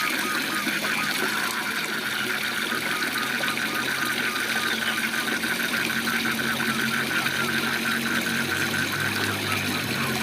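Waterfall rushing steadily, with a fast run of short repeated calls, several a second, from small animals over it. A low hum joins in underneath from about halfway.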